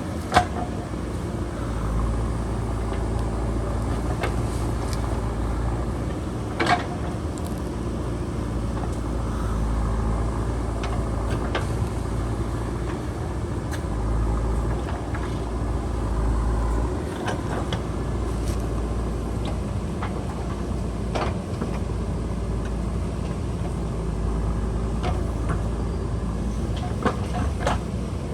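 JCB backhoe loader's diesel engine running steadily under work, with a few sharp knocks scattered through.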